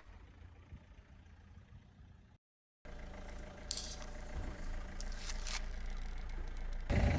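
Car engine idling faintly, with a few light scrapes. It cuts to silence for a moment about two and a half seconds in, and it grows louder near the end.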